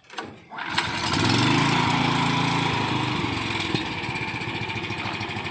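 Small engine of an alkon water pump starting up within the first second, then running steadily at a fast idle.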